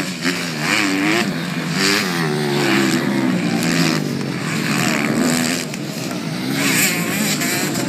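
Several motocross bikes revving hard, engine pitch repeatedly rising and falling and overlapping as riders accelerate along the track and over the jumps.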